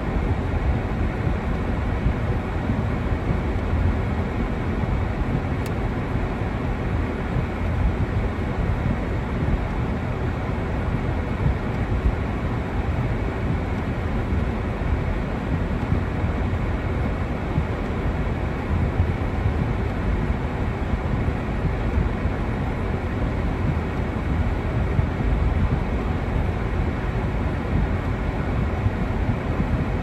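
Steady car cabin noise while driving slowly over snow: a low, even rumble of the engine and tyres.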